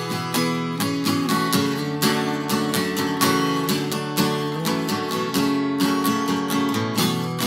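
Acoustic guitar with a capo, strummed in a steady rhythm, with the chords changing every second or so.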